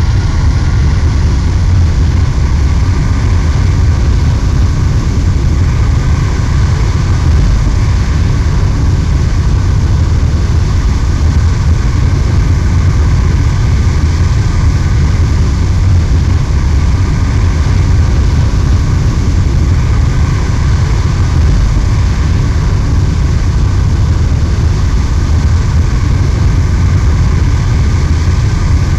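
Jet aircraft engine running steadily: a loud, constant low rumble with a steady high whine over it.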